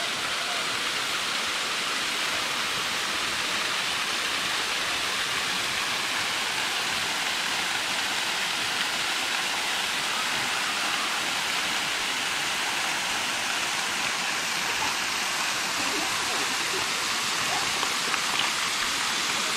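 Waterfall pouring down a rock face: a steady rush of falling water.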